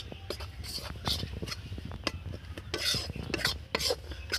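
Steel spatula stirring and scraping flour around a metal karahi, with repeated irregular scrapes against the pan's metal. The maida is being dry-fried in a little ghee over a low flame.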